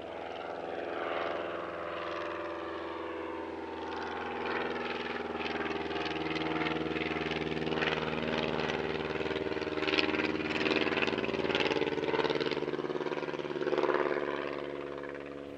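Piston aero engine of a scale-replica SE5A biplane running steadily, its level swelling a little a few times.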